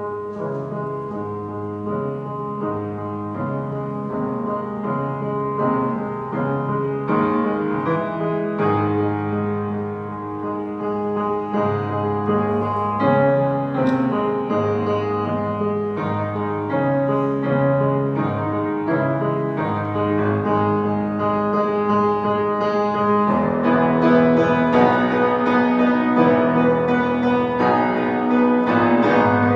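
Solo grand piano being played, a flowing piece of sustained notes and chords that grows gradually louder and becomes fuller and louder still about three-quarters of the way through.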